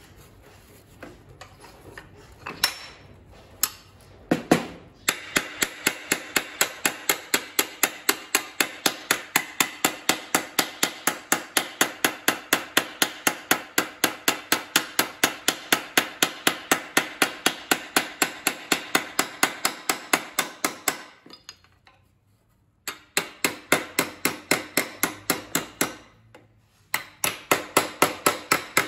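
Hand hammer striking a sheet-steel repair patch on a steel bench top to shape it. A few scattered blows are followed by rapid, even, ringing hammer blows, several a second, which break off twice for a moment near the end.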